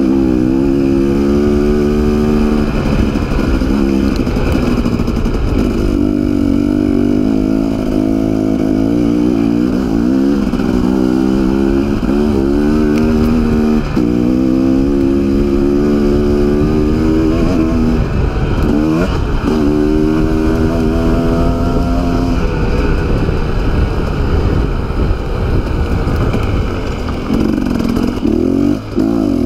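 Dirt bike engine running under the rider, its pitch climbing and falling back again and again as the throttle opens and eases off on a rough dirt track, over a steady low rumble.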